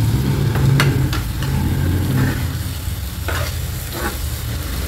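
Spatula stirring and scraping a mash of roasted eggplant, onion and tomato as it fries and sizzles in a non-stick frying pan, with a few sharp scrapes against the pan. A steady low rumble runs underneath.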